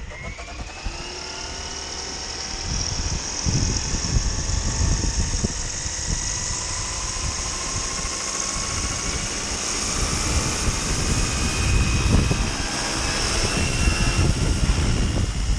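Roban 700 Black Hawk scale RC helicopter spooling up, its motor and rotor whine rising in pitch over the first couple of seconds, then running at a steady high whine. Gusty wind buffets the microphone with uneven low rumbles.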